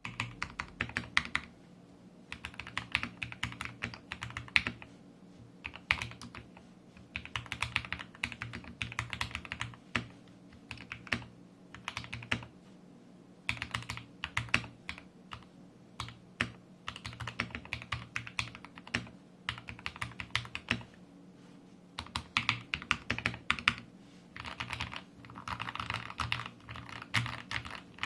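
Typing on an Anne Pro 1 mechanical keyboard with lubed Gateron Red linear switches and lubed stabilizers: rapid runs of keystrokes in bursts of a few seconds, broken by short pauses.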